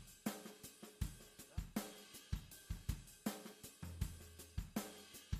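Background music with a steady drum-kit beat, cymbals and hi-hat over kick and snare, with a held bass note near the end.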